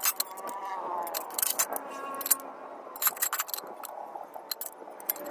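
Small metal pieces clinking together, a run of irregular sharp clicks and ticks.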